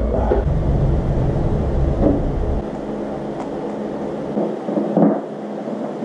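Low rumble, heaviest in the first two and a half seconds and then dropping away, with a few faint knocks and clicks of hands working on the motorcycle.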